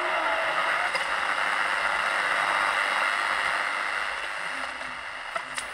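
Philips Philettina DL-384 three-band transistor radio hissing with static between stations as its tuning dial is turned. A steady whistle fades out about half a second in, and a few sharp clicks come near the end.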